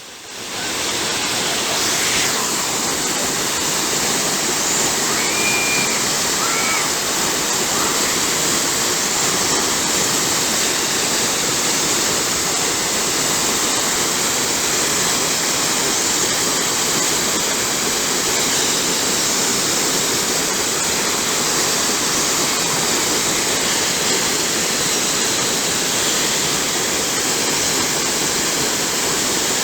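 Waterfall rushing with a steady roar of falling water.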